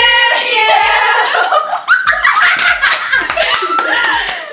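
A group of young women laughing hard together, several voices overlapping in giggles and shrieks of laughter.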